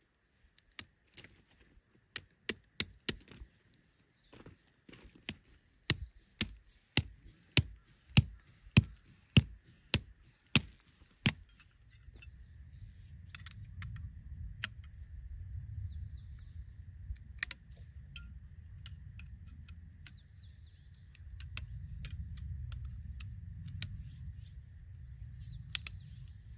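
Sharp metallic strikes, a steady run of about two a second that grows louder, as a tent stake is driven into gravel. Then a low outdoor rumble with a few light clicks as tent pole sections are fitted together.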